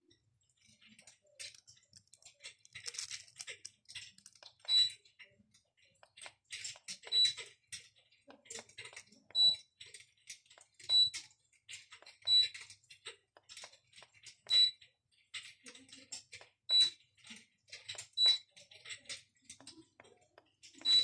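Log-fire crackle sound from an electric fireplace: irregular soft crackles and clicks, with a louder pop about every two seconds.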